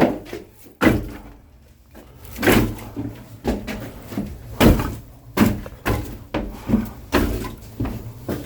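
Bundles of oak firewood being set down and stacked one after another: a series of sharp thumps and wooden knocks, roughly one every second.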